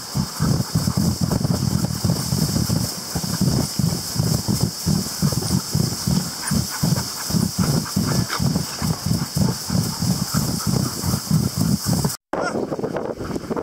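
Greenland sled dog running in harness through snow, its footfalls and breathing making a steady rhythm of about three beats a second over a constant hiss. About twelve seconds in the sound cuts off briefly and gives way to wind noise on the microphone.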